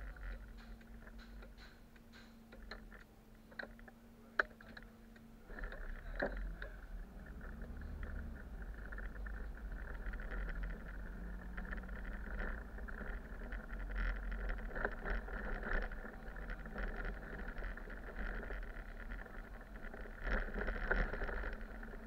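City bus driving, its engine and road noise heard from the driver's seat. For the first few seconds it runs quietly with a steady hum and a few light clicks and taps, then the engine note builds and climbs in pitch as the bus accelerates, with steady road and rattle noise.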